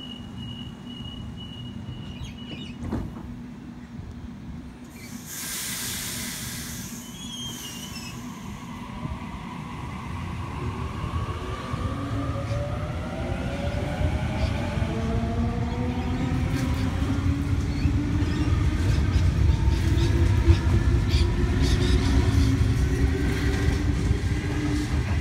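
Sydney Trains Waratah electric multiple unit departing: a short hiss about five seconds in, then its traction motors whining in several tones that rise in pitch together as the train accelerates away, growing steadily louder.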